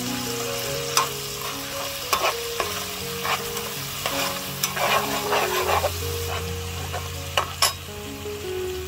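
A metal ladle stirs and scrapes lemongrass, chillies and garlic frying in hot oil in a nonstick frying pan. The oil sizzles steadily, and the ladle clinks against the pan, most busily around the middle and with two sharp clinks near the end.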